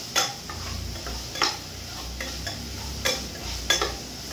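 Metal spoon stirring and scraping in a small steel pan of frying food, with a light sizzle and a few sharp clinks of the spoon against the pan.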